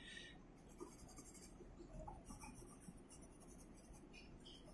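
Faint scratching of a coloured pencil shading on paper, in a few spells of scribbling with short pauses between them.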